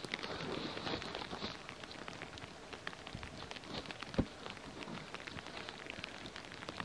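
Shovel scraping and crunching through packed snow at a tent's base: a dense patter of small crunches, with one sharper knock about four seconds in.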